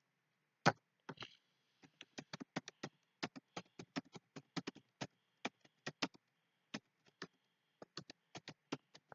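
Computer keyboard keys clicking as a sentence is typed: a run of short, irregular keystrokes, about three to four a second, with one louder stroke under a second in.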